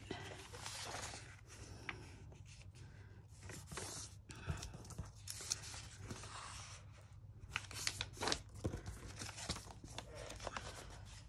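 Sheets of paper rustling, sliding and crinkling as they are handled and laid down, in scattered short rustles with a few sharper crackles.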